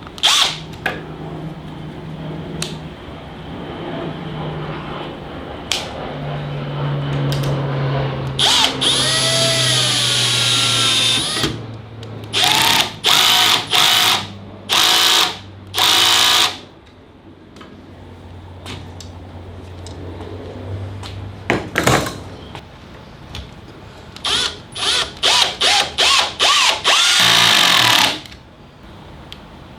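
Cordless drill driving 1¼-inch Kreg pocket-hole screws through pocket holes into timber, in a series of bursts of the motor with a quick run of short bursts near the end.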